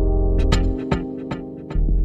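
Instrumental music on keyboards: held chords over a deep bass, with a light percussive tick about every 0.4 s starting about half a second in.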